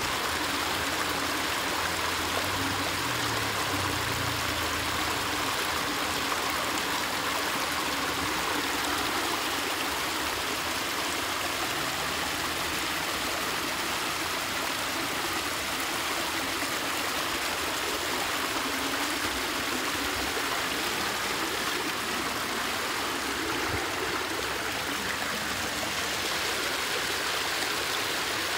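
Muddy water rushing out of concrete culvert pipes and pouring over a concrete apron in a steady flow.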